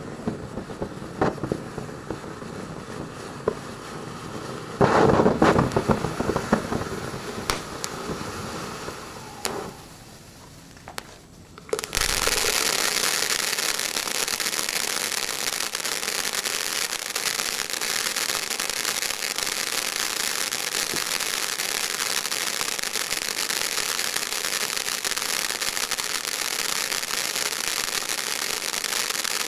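Zip and Zing firework fountain burning. For the first stretch it sprays sparks with a rough whoosh and scattered pops, with a louder surge about five seconds in, then dies down. About twelve seconds in, a new stage starts abruptly: a loud, steady, hissing shower of dense crackling sparks that carries on.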